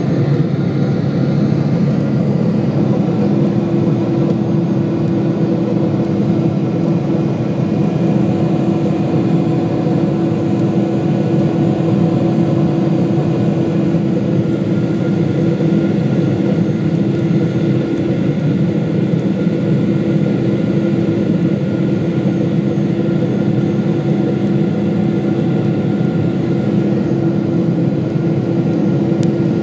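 Boeing 777 jet engines heard from inside the passenger cabin: a steady, loud rumble with a constant hum that sets in about three seconds in.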